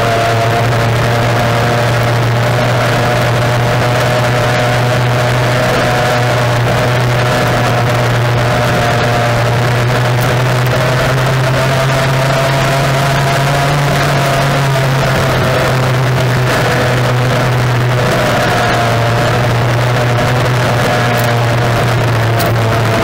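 Racing outboard engine of a tunnel-hull powerboat running flat out, heard from on board as a loud, steady drone. The pitch holds almost constant, sagging slightly about two-thirds of the way through before coming back up, over a rush of wind and water.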